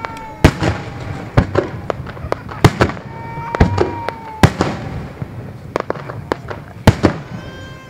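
Aerial fireworks shells bursting in a rapid, irregular series of sharp bangs, more than a dozen in all, with a very loud one about seven seconds in.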